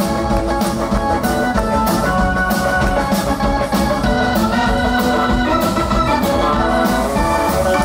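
Live rock'n'roll band in an instrumental passage: a keyboard plays an organ sound over drums keeping a steady beat.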